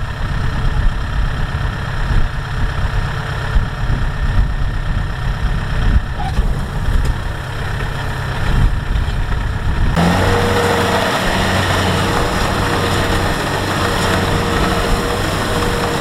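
Kubota rice combine harvester's diesel engine running steadily. About ten seconds in the sound changes abruptly to a louder, brighter engine note with a steady whine.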